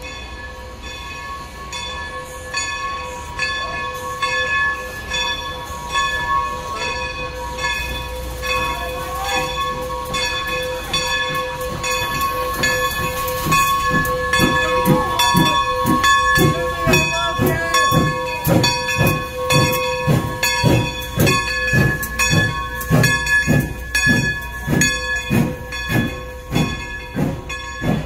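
2-8-0 steam locomotive working, with steam hiss and exhaust chuffs that build up strongly about halfway through and then run evenly, roughly two a second. A steady tone runs underneath throughout.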